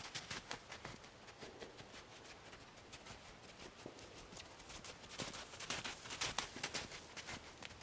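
Arabian mare's hoofbeats on a sandy gravel arena as she canters in a circle, a run of quick thuds that grows loudest about five to six and a half seconds in as she passes close by.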